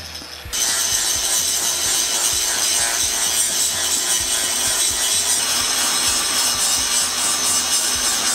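Angle grinder grinding steel tubing: a steady, harsh hiss that comes in suddenly about half a second in and holds.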